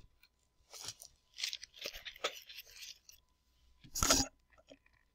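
Rummaging and paper rustling as a printed periodic table sheet is picked up and handled, with irregular crackles and a louder crackle about four seconds in as the sheet is lifted up.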